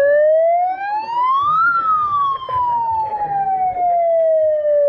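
A siren sounding one long wail: the pitch rises for about two seconds, then falls slowly.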